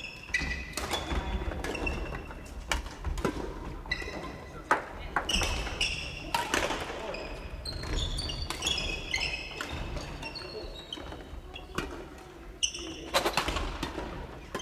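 Badminton rallies on a wooden gym floor: many sharp racket-on-shuttlecock hits and thuds, with frequent short high-pitched squeaks of sneakers on the floor.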